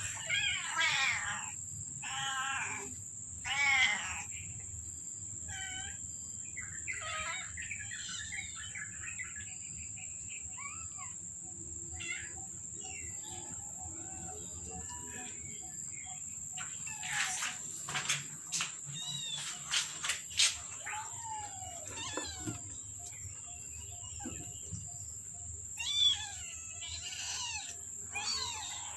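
Very young kittens mewing in high, rising-and-falling cries. The cries come in clusters: several in the first few seconds, more around the middle and again near the end, with a few light knocks in between.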